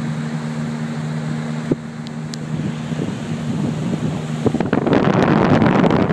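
A motorboat's engine running with a steady low hum; about four and a half seconds in, a loud rush of wind buffeting the microphone takes over.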